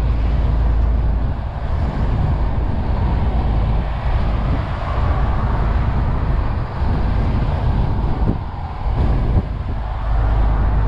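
MAN TGX 470 truck heard from inside the cab at motorway speed: steady drone of its straight-six diesel engine mixed with tyre and wind noise. A couple of brief knocks come near the end.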